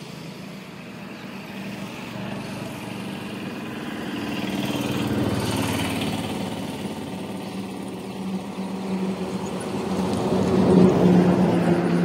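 A small engine running steadily, growing louder about five seconds in and again near the end.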